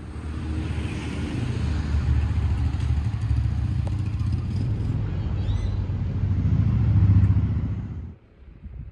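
A motor vehicle's engine running with a low rumble, swelling to its loudest about seven seconds in, then cut off abruptly about a second before the end.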